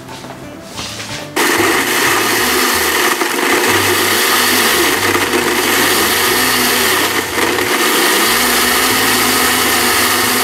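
Blendtec blender switched on about a second and a half in, then running steadily at high speed as it purées mango, rum, syrup and lime juice into a frozen daiquiri.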